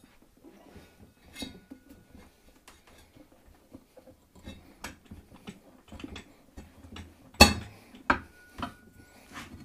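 Metal clanks and knocks from prying a small tire off its rim on a mini tire changer, with its steel mounting/dismounting bar. The loudest clank comes about seven seconds in, followed by a few more sharp knocks.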